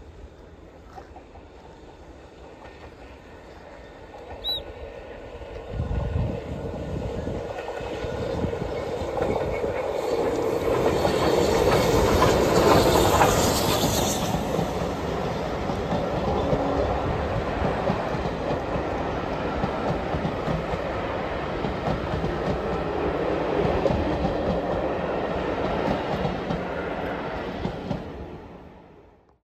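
Steam-hauled passenger train approaching round a curve and passing close by. It grows suddenly louder about six seconds in and is loudest around twelve seconds in as the locomotive goes by, then a long rake of coaches keeps rolling past at a steady level until the end.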